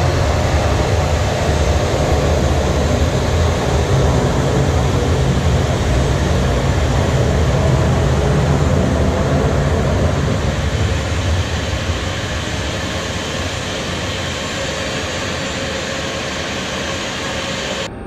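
Jet airliner engines rumbling loudly, heavy in the low end, fading steadily after about ten seconds as the aircraft moves away. The sound drops suddenly just before the end.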